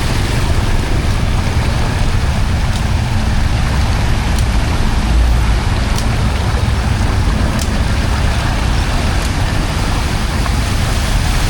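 Steady, loud rush of flowing floodwater with a heavy low rumble.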